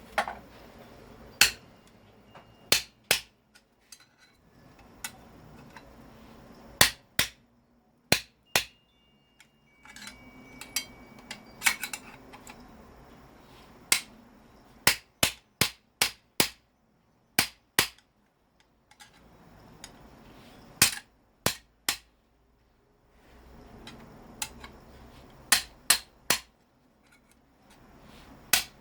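Hammer blows striking metal, as in knocking apart a scrap electric motor to get at its copper windings. The blows are sharp and irregular, some in quick runs of two to four with short pauses between.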